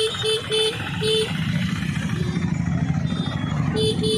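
A vehicle horn sounds three short beeps, then three more near the end, over the running of motorcycle and scooter engines in busy street traffic.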